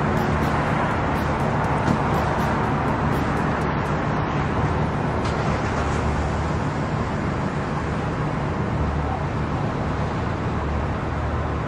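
Steady background hum and hiss of a large buffet restaurant, with a low drone underneath and no distinct events.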